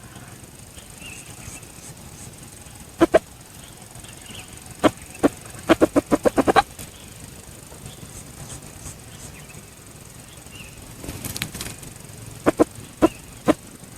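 Rooster flapping its wings in short bursts of sharp claps, one quick run of about seven beats near the middle.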